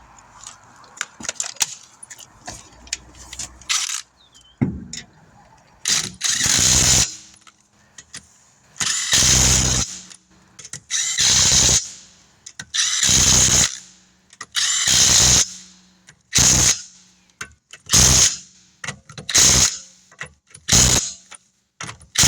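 Impact wrench driving the lug nuts onto a just-mounted wheel, in about nine short bursts one to two seconds apart, after a few seconds of small metal clicks as the nuts are started.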